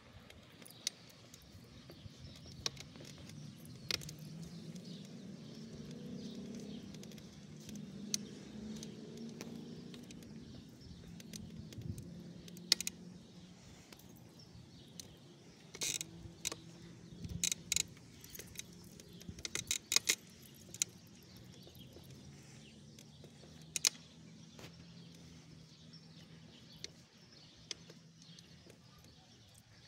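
Scattered metallic clinks and jingles from a small dog's leash clasp and collar as it walks, thickest between about 16 and 21 seconds in, over the faint hum of a car passing, which swells and fades in the first third.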